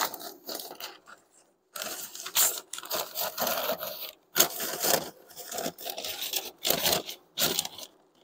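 Newspaper rustling and crinkling in irregular bursts as a sheet is handled and pressed into place.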